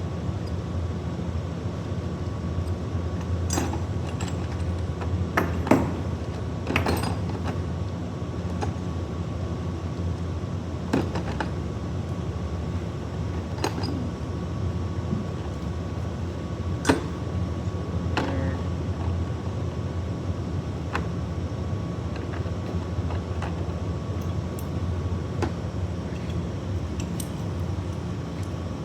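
Steady low machinery hum with a faint high steady tone over it, and scattered clicks and clinks of small metal objects being handled, about eight in all.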